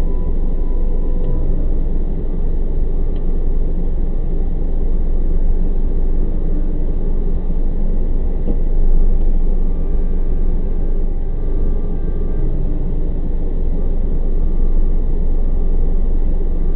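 Steady low rumble of an idling vehicle engine, heard from inside the car through its dashcam microphone.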